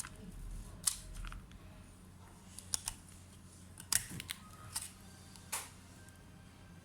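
About seven light clicks and taps, spaced unevenly, over a low steady hum.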